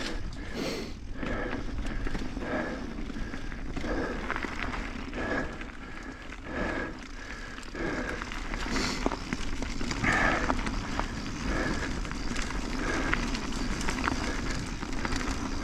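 Mountain bike riding along a dirt forest trail: tyres rolling over the ground with a soft swish that repeats a little more than once a second.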